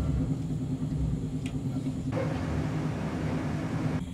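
Passenger train running at speed, heard from inside the carriage as a steady low rumble. A rushing hiss joins about halfway through and drops away near the end.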